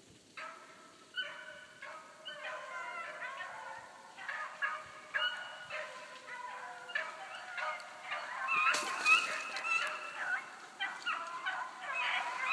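A pack of hounds baying together, several voices overlapping in repeated calls that build in number and loudness, the sound of dogs running a track.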